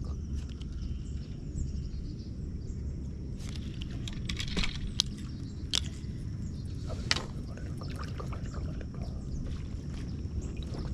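Water sloshing and splashing around an inflatable kayak over a steady low rumble, with a handful of sharp clicks and splashes between about four and seven seconds in.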